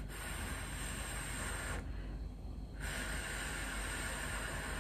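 A person blowing on a hot piece of chicken held in chopsticks to cool it before eating: two long breathy blows, the first stopping just under two seconds in, the second starting about a second later.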